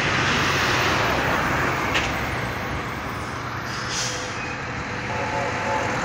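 Road traffic passing on a street, a truck among it, recorded through a smartphone's built-in microphone. There is a short click about two seconds in and a brief hiss about four seconds in.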